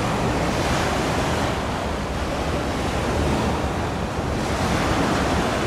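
Sea waves washing and wind buffeting the microphone: a steady rushing noise that swells twice, with no distinct ship engine heard.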